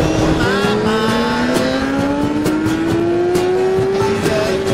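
Motorcycle engine pulling through a gear: about half a second in the pitch drops with an upshift, then climbs steadily as the bike accelerates, with wind noise over it.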